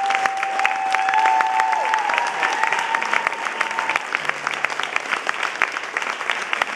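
Concert audience applauding, with a few long cheers held on one pitch over the first half.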